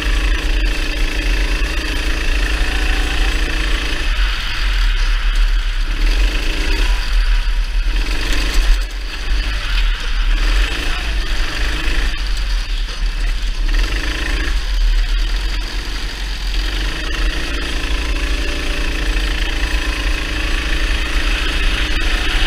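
Kart engine heard from on board, running under load, its note dropping away and coming back every second or two as the throttle is lifted and reapplied through corners, over a steady low rumble. A brief sharp bump stands out about nine seconds in.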